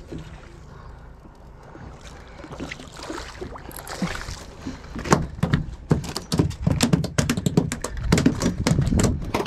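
Steady wind and water noise, then from about five seconds in a fast, irregular run of sharp knocks and slaps: a small mahi-mahi splashing at the boatside and flopping on the fiberglass deck after being swung aboard.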